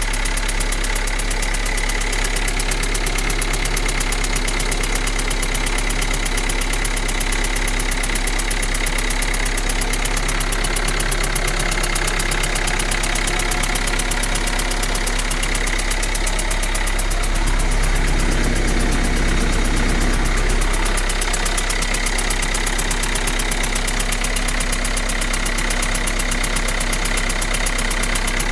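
Renault Laguna 3's 1.5 dCi (K9K) four-cylinder diesel engine idling with a rapid chattering clatter (стрекот), which the owner suspects may come from the bearing shells or the injectors. The engine runs a little louder for a few seconds about two-thirds of the way through.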